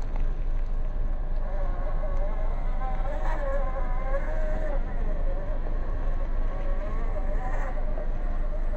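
Brushless motor of a Furitek Fury Wagon 1/18-scale RC rock crawler whining as it drives, the pitch wavering up and down with the throttle. The whine is strongest from about three to five seconds in, with another short swell near the end.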